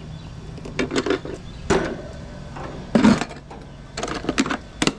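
Hollow plastic knocks and clatter from a wet/dry shop vacuum being handled, its canister and lid bumped and set back together, in a series of sharp knocks with the loudest about three seconds in. A steady low hum runs underneath.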